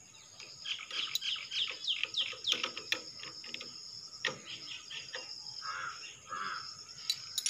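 Birds chirping in rapid downward-sweeping calls, thickest in the first few seconds, over a steady high drone of insects, with a few sharp clicks.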